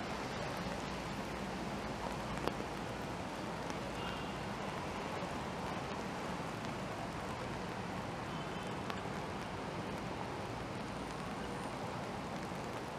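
Steady hiss of rain and traffic on wet city roads, with one sharp tick about two and a half seconds in.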